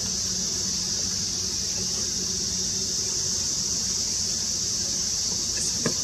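Steady high-pitched drone of summer cicadas, with one brief knock just before the end.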